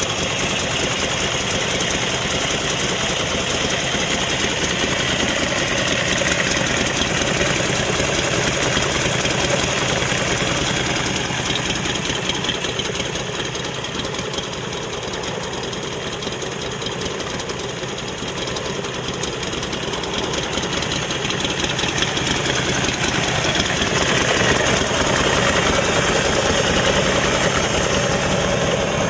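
Buell XB12SS Lightning's 1203 cc air-cooled V-twin engine idling steadily, with no revving.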